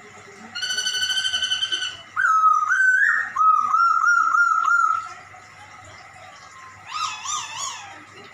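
Poksay Hongkong (a laughingthrush) calling in cat-like meows. A trilled call comes about half a second in, then a run of quick wavering notes for about three seconds, and a short falling, wavering meow near the end.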